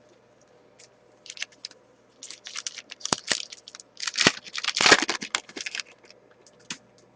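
A hockey card pack's wrapper being torn open and crinkled. It comes in a dense crackling run about two seconds in, loudest a second from the end of that run, with a few separate clicks before and after.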